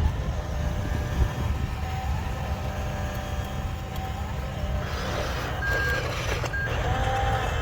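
Truck engine rumbling steadily while a reversing alarm beeps, with short high beeps about two-thirds of the way through.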